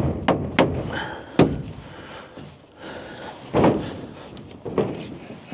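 Wooden shipping crate being knocked apart: a quick run of three sharp knocks, then a few single thuds spaced out, wood struck as the boards are worked loose.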